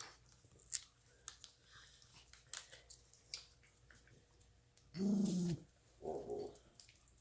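Puppies gnawing on a bone, with scattered sharp clicks. About five seconds in, a dog gives a loud, short vocal sound, then a second, shorter one about a second later.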